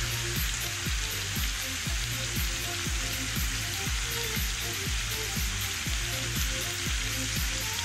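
Chicken pieces sizzling steadily in hot oil in an aluminium pot as they are sautéed with ginger and onion.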